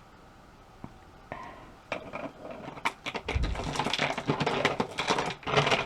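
Handling noise from old salt dough ornaments and packing being rummaged through in a box: rustling with many light clicks and clinks, plus one dull knock, starting about two seconds in and stopping just before the end.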